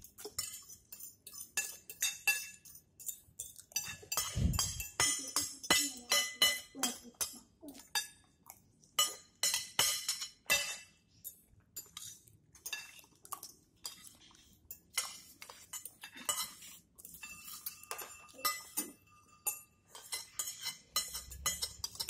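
Metal spoons and forks clinking and scraping on ceramic plates in quick, irregular strokes while people eat, with short rings off the plates. One dull thump comes about four seconds in.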